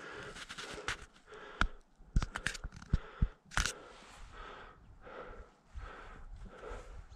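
Footsteps on a rocky mountain trail: a few sharp clicks and scrapes on stone, then a steady rhythm of about two steps a second.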